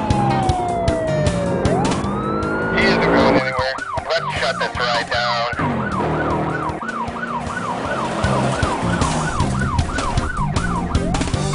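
Police siren: a long wail falling and then rising, switching about three seconds in to a fast yelp that warbles up and down about twice a second, and swelling back into a rising wail near the end.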